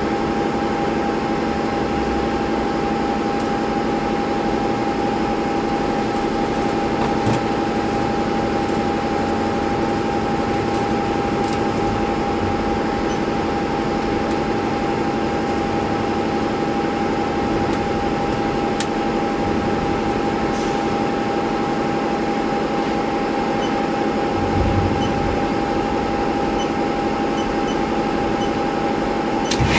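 Haas TL-15 CNC lathe running as its sub-spindle travels along the bed: a steady machine hum with a constant high whine over lower droning tones. A short clank comes right at the end.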